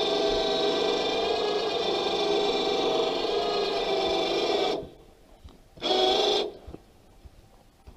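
Harbor Freight 12-volt electric winch on a truck crane hoisting a log: a steady motor whine that cuts off abruptly about five seconds in, then one short second run about a second later.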